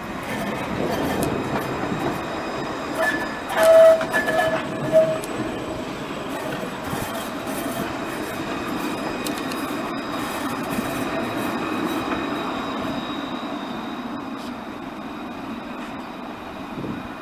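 Alstom Citadis tram passing close by at low speed, with a steady rumble of its running gear on the rails. A short pitched warning signal sounds about four seconds in and again briefly a second later. In the second half the wheels squeal faintly and high in the curve.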